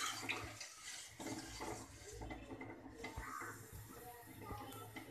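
Metal spatula stirring a watery fish curry in a steel kadai, with irregular scrapes and clinks against the pan and the slosh of the thin sauce.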